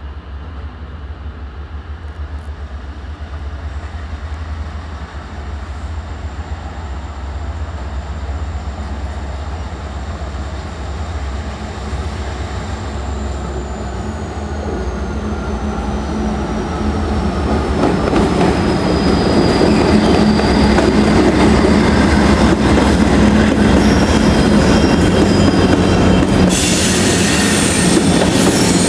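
Norfolk Southern freight train approaching and passing, led by diesel locomotives. The low engine rumble grows steadily louder, a high whine slides down in pitch as the train nears, and a sharp hiss of wheels on rail comes in near the end as the locomotives go by.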